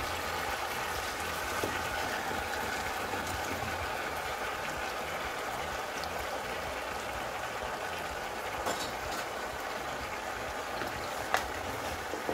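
A pan of vegetables sizzling on the stove, a steady hiss, with a light knock about eleven seconds in.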